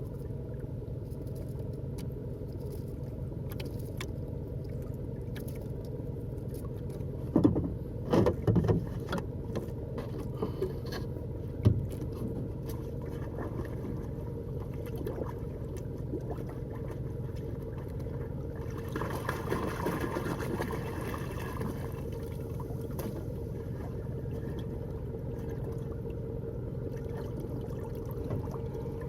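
Small fishing boat's motor running steadily, with a few knocks about a third of the way in and a brief hiss of water a little past the middle.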